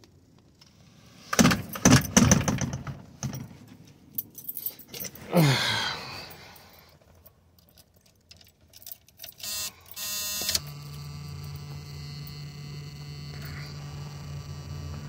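Car keys jangling as the key is fitted into the steering-column ignition. About ten seconds in, the starter cranks briefly and the Buick 455 V8 catches and settles into a steady idle.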